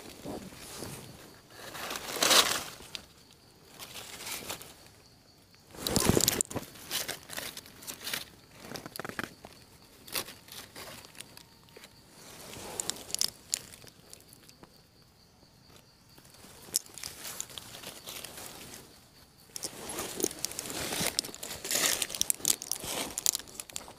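Footsteps crunching and rustling through dry leaf litter and forest undergrowth, in irregular bursts with quieter stretches between.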